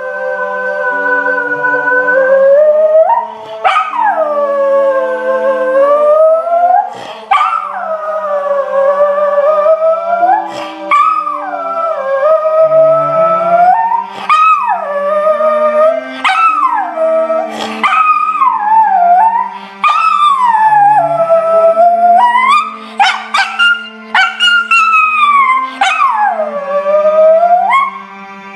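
Miniature schnauzer puppy howling along to slow, low music: a string of long howls, each swooping up and then sliding down in pitch, with short breaks between them.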